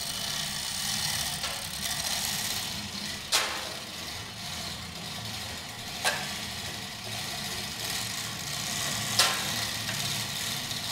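A steady low mechanical hum with three sharp clicks, about three seconds apart.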